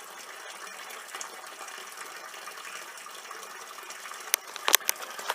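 Water running steadily at a garden fish pond, an even gushing splash. A few sharp clicks come near the end.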